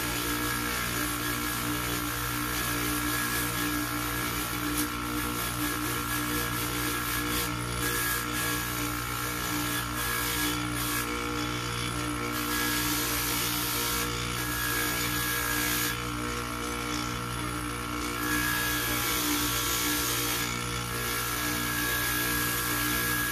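Electric polishing motor running steadily with a buffing wheel on its spindle, a metal watch bracelet piece held against the spinning wheel. A steady hum under a high hiss of wheel on metal that comes and goes in stretches as the piece is pressed on, moved and eased off.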